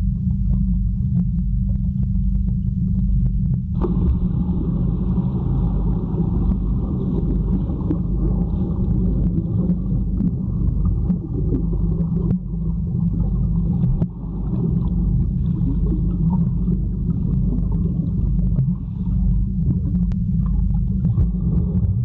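Muffled low rumble of water against a camera's microphone held underwater in a swimming pool, steady throughout, with a fainter higher hiss joining about four seconds in.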